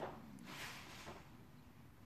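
Newborn Shiba Inu puppies suckling at their mother's teats: faint, wet sucking and smacking noises, the sharpest right at the start and a softer one about half a second in.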